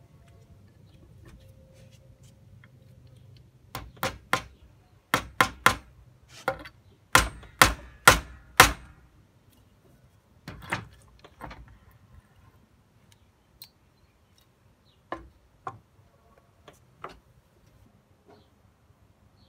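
Restored Estwing solid-steel claw hammer driving a nail into a wooden board: about eleven sharp blows in quick groups of three or four, a few seconds in. A few lighter, scattered knocks follow later.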